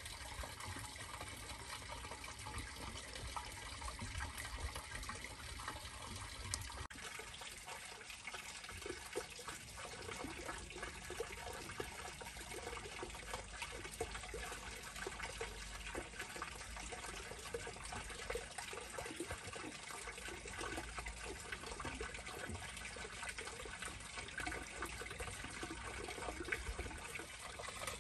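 Small stone wall fountain: a thin stream of water from a metal spout trickling and splashing steadily into a stone basin, faint and unbroken.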